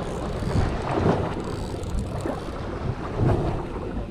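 Wind buffeting the microphone in gusts over choppy water lapping at a small boat's hull.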